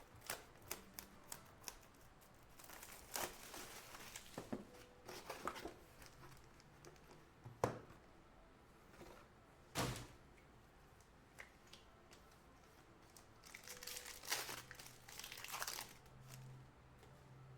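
Trading card packs being torn open and the cards handled: faint scattered crinkles, rustles and clicks, with two sharper snaps about 8 and 10 seconds in and a longer rustle near the end.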